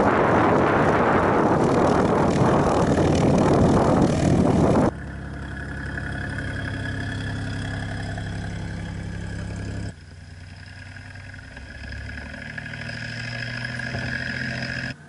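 Loud rushing wind noise on the microphone for the first few seconds, then the tow plane's piston engine running steadily ahead of the glider, heard from the glider's cockpit. It grows louder near the end.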